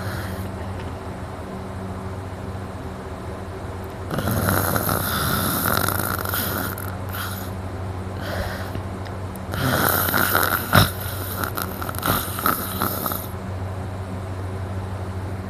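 A man snoring so hard in deep sleep: two long snores, about four and ten seconds in, each lasting about three seconds, the second with a fluttering rattle, over a steady low hum. He puts the snoring down to exhaustion and a very relaxed throat.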